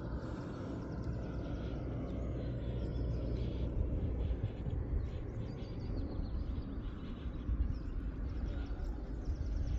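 Outdoor ambience dominated by wind rumbling on the microphone, with small birds chirping faintly.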